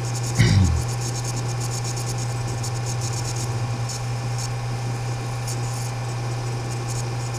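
A steady low electrical hum under an even hiss, with fine rapid ticking high up; a short voiced sound comes about half a second in.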